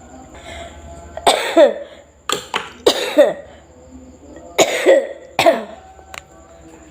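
A woman coughing hard in three fits, about nine coughs in all, each dropping in pitch: the severe cough of someone ill.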